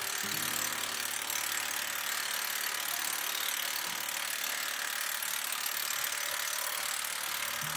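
Barge-coupling river ratchets being cranked tight, their pawls clicking, over a steady hiss.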